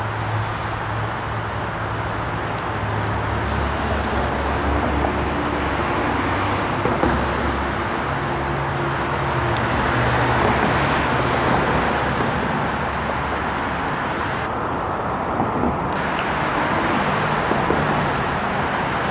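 Steady road traffic noise, with engine hum from passing vehicles swelling and fading, loudest about halfway through.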